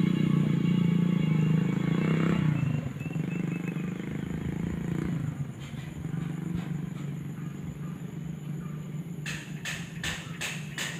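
A nearby motor vehicle engine running steadily, then falling in pitch and fading about two and a half seconds in, as a passing vehicle does. A quieter low engine hum continues, and a quick run of clattering knocks comes near the end.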